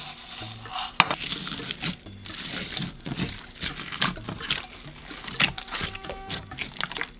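Foam beads poured onto glossy slime, then hands folding and kneading the beaded slime: sticky squishing with many small crackling pops from the foam beads.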